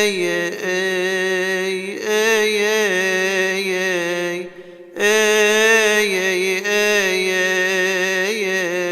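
A solo male voice chants a Coptic Orthodox hymn in long, drawn-out melismatic notes that waver and turn on each held vowel, with a short breath pause about halfway through.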